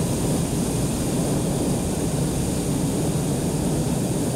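Hot-air balloon propane burner firing, a steady loud roar that holds unbroken.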